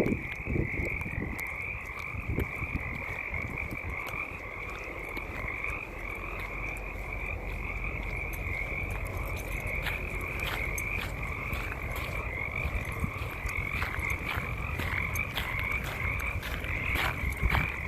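Dense chorus of frogs calling, a steady high-pitched din without a break, with scattered sharp clicks that come more often in the second half.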